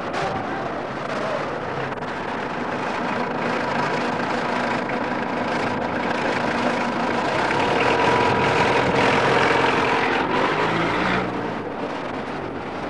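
A motor vehicle engine running, growing louder toward its peak about eight to ten seconds in, then dropping away about eleven seconds in.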